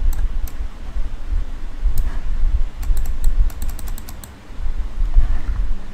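Computer keyboard clicks: a few single keystrokes, then a quick run of about eight near the middle, over a low rumble.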